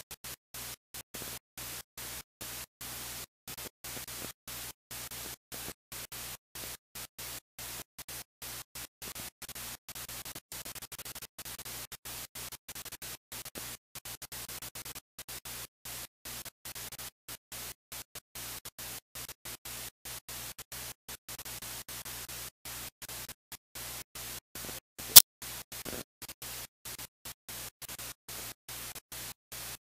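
Steady hiss and static from a failing wireless audio feed, cutting in and out many times a second as the connection drops out. One sharp, loud click comes near the end.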